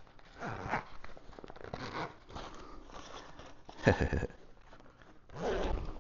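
Handling noise of a clear plastic shield and fabric inflatable dog collar being worked together at the zipper: short, irregular rustles and scrapes, with a sharp knock about four seconds in.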